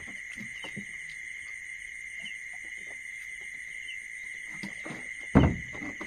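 Night insect chorus: a steady, high-pitched trilling of crickets with faint scattered ticks, and a single thump about five seconds in.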